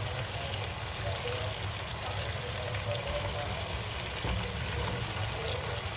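Chicken pieces and ginger sizzling steadily in hot oil in a pot, with a brief soft clatter of sliced mushrooms tipped into the pot about four seconds in.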